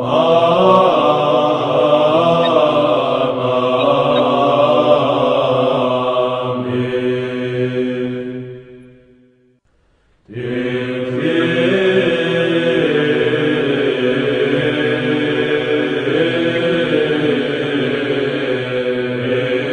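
Orthodox Byzantine chant: voices singing a melody over a steadily held drone note. It fades out about eight seconds in, falls silent for about a second, and a new chant starts abruptly about ten seconds in.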